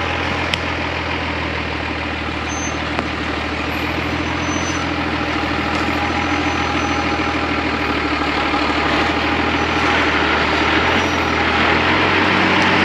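Mercedes-Benz Unimog 1700 L truck's diesel engine running steadily at low revs as the truck crawls over a rutted dirt track, growing louder as it comes closer.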